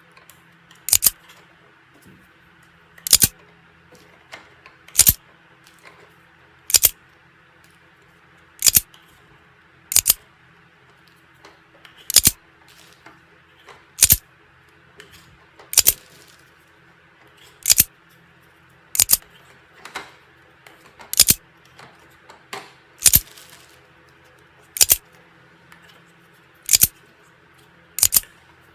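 Foam darts being pushed one at a time into a toy blaster's plastic magazine: a sharp plastic click every second or two, about sixteen in all.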